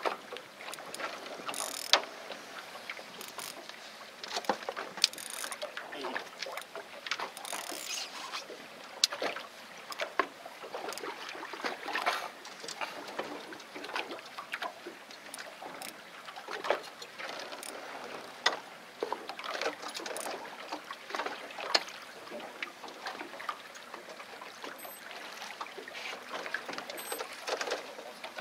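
Small waves lapping and slapping irregularly against the hull of a drifting fishing boat, with now and then a sharper knock.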